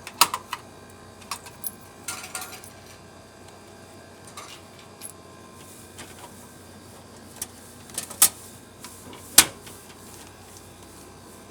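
Coins clinking and small metallic clicks at a vending machine as change is taken from the tray, with scattered clunks and one heavier knock about nine seconds in.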